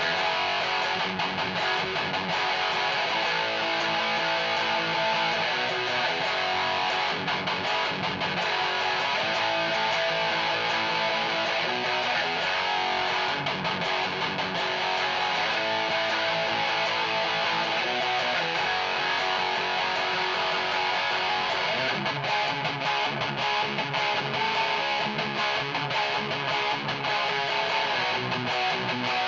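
Electric guitar with active pickups played with high-gain metal distortion through a Peavey 6505 Piranha amp and small 1x8 cabinet, playing a continuous riff, with heavier low notes from about two-thirds of the way through.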